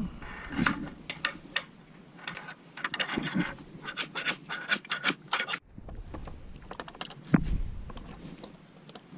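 Irregular sharp clicks and short metallic rattles of bicycle parts and hand tools being handled during a mountain bike build, with a louder knock about seven seconds in.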